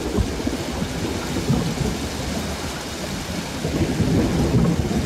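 Steady rain with low thunder rumbling underneath.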